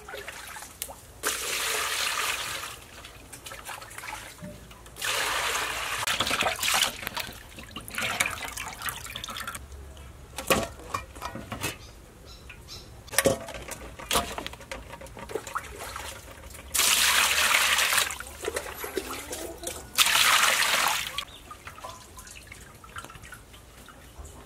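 Water splashing as a snakehead fish is rinsed and handled in a metal basin, in five bursts of a second or two, with knocks and handling sounds between them.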